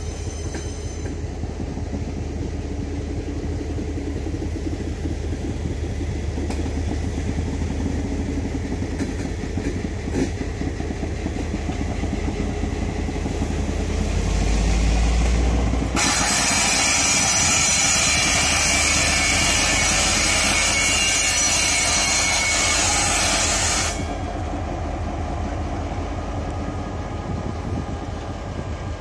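Passenger coaches rolling past on the rails with a steady low rumble, joined by the drone of a Taiwan Railways R100-class diesel-electric locomotive as it draws near. About halfway through, a loud, steady hiss starts suddenly and cuts off about eight seconds later.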